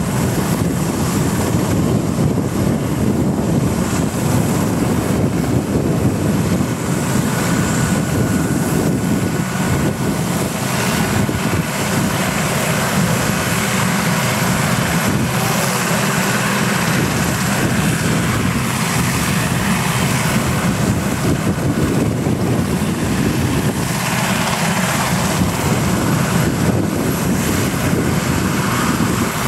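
RAF Sea King search-and-rescue helicopter running on the ground with its rotors turning before take-off: a steady, loud rotor and turbine noise with a faint high whine over it.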